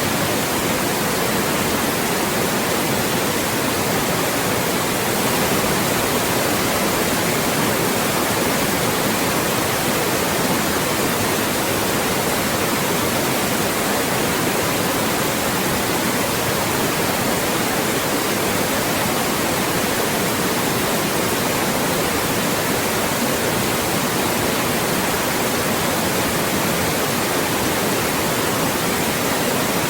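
Loud, steady white noise: an even, unchanging hiss across the whole range, used to mask speech.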